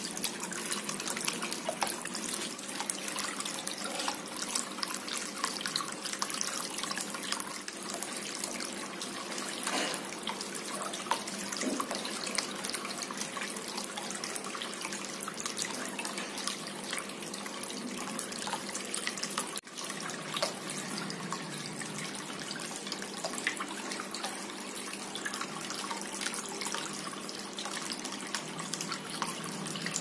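Water trickling and splashing steadily down a small cement tabletop waterfall fountain into its stone-filled basin, circulated by a 9 W aquarium pump, with a faint steady hum underneath. The sound drops out very briefly a little under two-thirds through.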